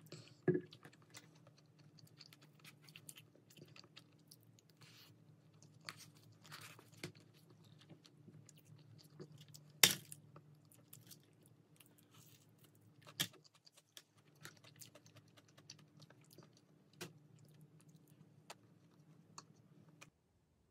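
Close-up eating sounds: chewing, with a wooden spoon working in a paper cup of rice, and short clicks and knocks every few seconds, the loudest about ten seconds in, over a faint steady low hum.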